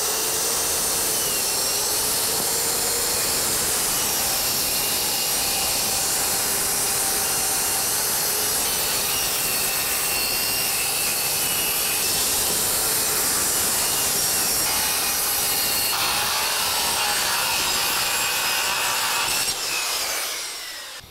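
Handheld circular saw cutting through plywood shed siding, running steadily under load with a whining blade whose pitch wavers slightly. The cut dies away near the end.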